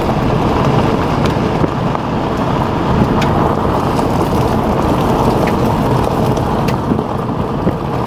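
Steady road and engine rumble of a car driving, heard from inside the moving vehicle, with a few short sharp ticks.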